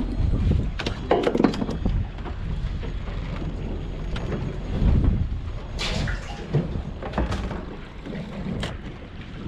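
Wind buffeting the microphone aboard a small boat at sea, with water sloshing. A cluster of sharp clicks and knocks comes about a second in, and a few more follow later.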